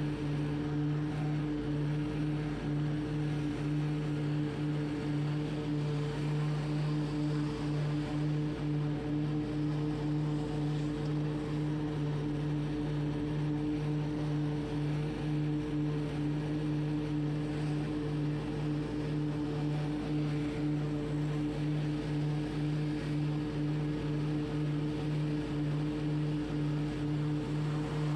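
Hustler Surfer Pro compact stand-on mower running steadily while mowing: a constant engine drone whose pitch stays unchanged.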